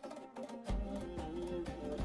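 Instrumental background music; a deep bass and beat come in under a second in.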